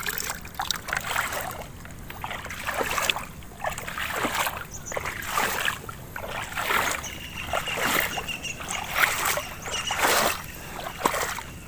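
Shallow water in a flooded rice paddy splashing and sloshing in irregular bursts, about one a second.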